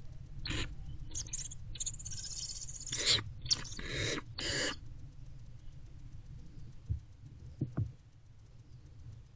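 Barn owlets in a nest box giving a run of short, rasping hisses, their begging 'snore' calls, in the first five seconds, followed by a few faint taps near the end.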